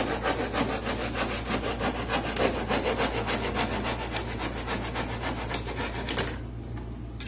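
Hand saw cutting through a WPC (wood-plastic composite) cladding panel with rapid, even back-and-forth strokes that stop about six seconds in.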